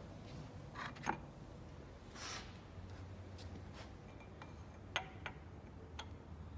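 Sharp metallic clinks of a long bit socket being taken from its case and fitted onto a bolt head in the engine: a click about a second in, a soft rustle, then three clicks between five and six seconds, the first the loudest.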